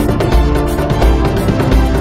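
Music with a deep, pulsing bass beat and drum hits.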